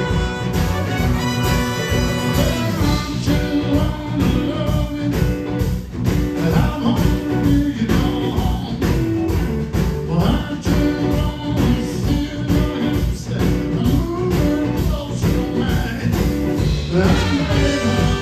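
Blues-rock band playing live, with a steady drum beat under guitar.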